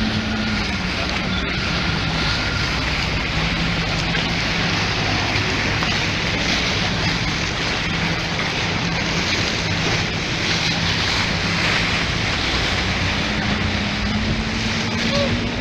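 Motorboat engine running steadily under a dense rush of water and wind noise on the microphone. The engine note drops a little about half a second in and rises back near the end, as the boat eases off and picks up speed again.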